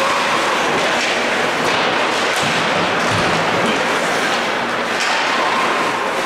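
Ice hockey game sounds in a rink: a steady loud din of skates on ice and the spectators, with a few stick, puck or board knocks, one low thud about three seconds in.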